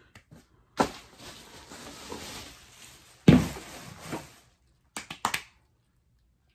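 Rustling and handling of belongings being packed away, with one sharp knock about three seconds in and a few quick clicks near five seconds.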